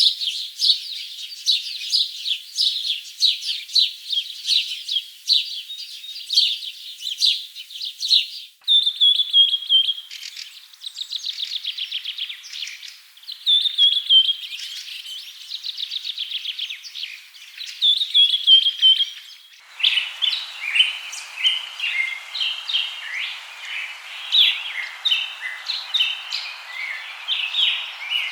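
Birds singing, a busy chorus of quick chirps and rapid trills. The recording changes abruptly twice, about a third and about two thirds of the way through. The last part has a steady hiss of background noise under the calls.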